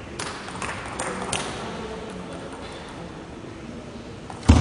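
Table tennis ball clicking off the bats and table in a rally, a quick run of hits about every half second in the first second and a half, then hall hush. A loud thump comes near the end.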